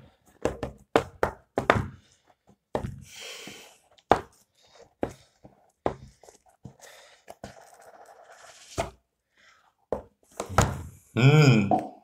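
Cardboard smartphone box being handled and opened: a run of light knocks and taps, with a few brief scrapes as the lid slides. Near the end comes a short wavering hum or grunt from a man's voice.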